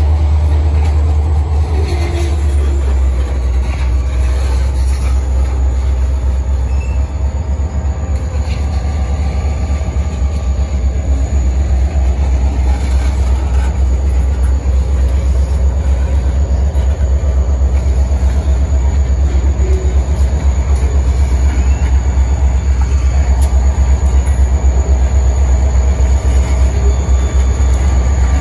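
Freight train tank cars rolling past, a steady low rumble of steel wheels on rail with faint wheel squeals, growing a little louder near the end.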